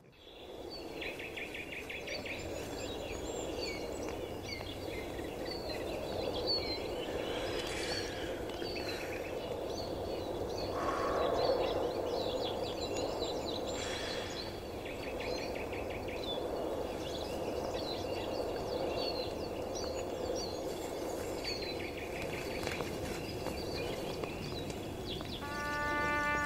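Outdoor ambience: a steady background hiss with small birds chirping and twittering on and off throughout. Music with brass comes in near the end.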